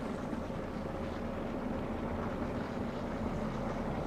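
Scania G 460 truck's 13-litre straight-six diesel engine running steadily at low speed as the truck pulls slowly across the yard, a low even hum.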